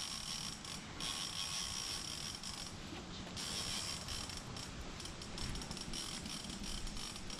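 Fishing reel being cranked to wind in line, a continuous rapid ratcheting click with a higher whir that stops briefly twice.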